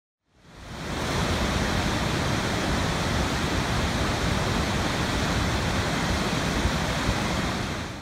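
Steady rushing of a large waterfall, fading in about half a second in and fading out near the end.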